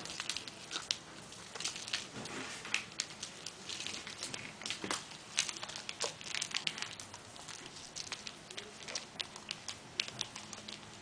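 Kitten playing with plush toys on a foam play mat: irregular soft taps, scuffles and rustles as it paws, pounces and pushes the toys around. The taps are busiest in the first half and thin out later.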